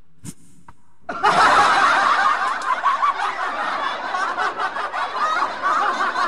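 Laughter that starts abruptly about a second in and carries on loudly, many wavering laughing voices overlapping at once like a crowd or a laugh track.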